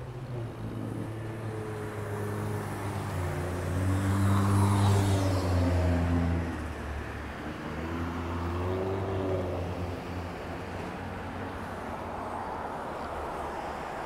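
Street traffic: a motor vehicle's engine passing with a low drone, loudest about four to six seconds in, then a second, smaller swell around nine seconds in, over steady road noise.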